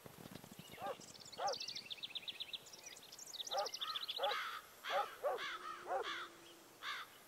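Birds calling: a fast, high trill of rapidly repeated notes in the first half, then a string of short, arching calls a few per second.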